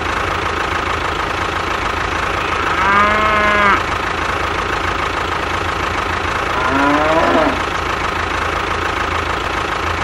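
Tractor engine idling steadily, with a cow mooing twice over it, about three seconds in and again about seven seconds in, the second moo rising in pitch.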